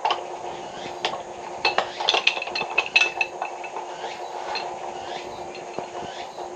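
Sharp metallic clinks and knocks of tools or pipe fittings being handled, bunched about two to three seconds in, over a steady background hum.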